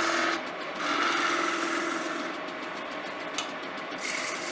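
Wood lathe running with a softwood (pine) table leg spinning, a turning chisel shaving the wood for the first couple of seconds, then the lathe's steady hum on its own, with a single sharp tick about three and a half seconds in.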